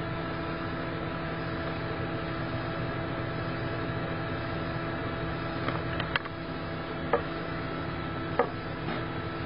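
Steady machine hum over a constant hiss, with a few faint clicks in the second half.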